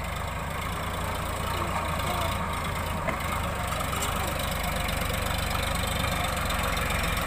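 Tractor's diesel engine running with a steady low chug close by as it pulls a trailer past, growing slightly louder as it nears.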